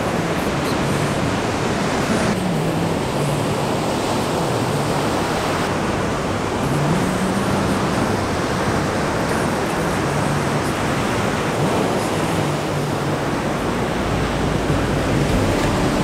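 Ocean surf breaking and washing up a sandy beach: a steady, continuous rush of waves.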